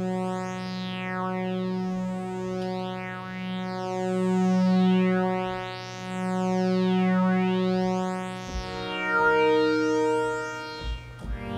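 Kurzweil PC3 synthesizer playing a held pulse-width-modulation patch through its Circle Bandsweep effect: a resonant bandpass filter sweeps up and down over the sustained notes again and again. The notes change about eight and a half seconds in.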